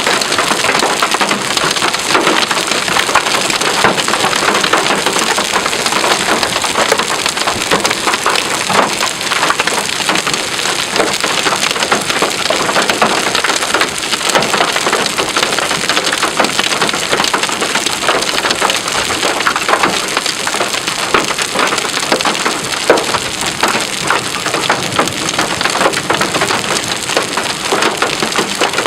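Heavy rain from a severe thunderstorm pelting a hard surface: a loud, steady, dense patter with many sharp ticks.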